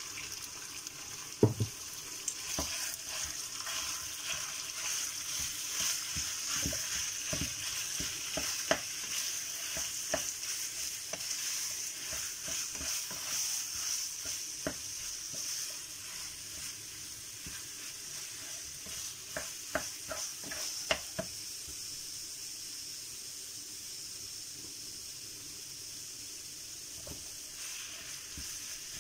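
Raw ground pork sizzling in a hot frying pan while a wooden spatula breaks it up and stirs it, with scattered knocks and scrapes of the spatula against the pan and one sharp knock about a second and a half in. The sizzle dies down over the second half.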